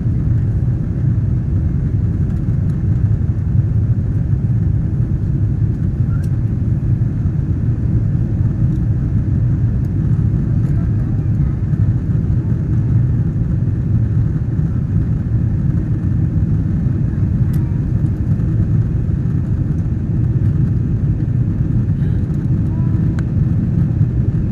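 Steady low rumble of a jet airliner's engines and airflow heard from inside the passenger cabin.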